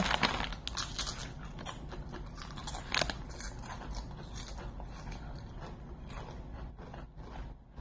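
Potato chips being crunched and chewed: many small, irregular crackles, with one louder crunch about three seconds in.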